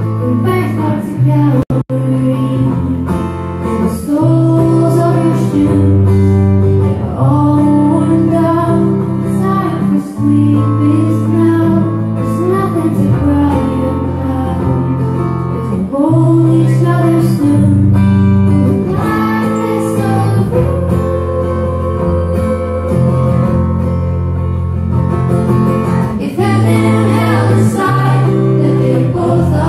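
Live music: a woman singing over strummed guitar chords through a venue PA. The recording cuts out for an instant a little under two seconds in.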